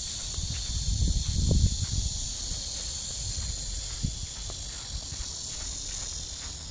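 Steady, high-pitched chorus of insects singing, with irregular low thuds underneath that are loudest about one to two seconds in.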